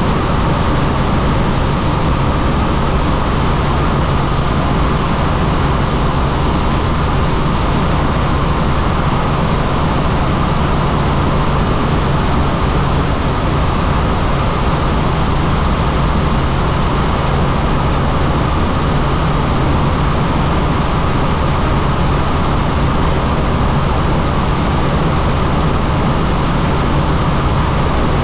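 Helicopter in flight: a loud, steady drone of engine and rotor with a low hum underneath.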